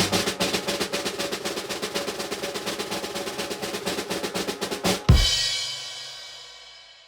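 Drum roll in background music, rapid even snare strokes that end about five seconds in with a loud crash hit ringing out and fading.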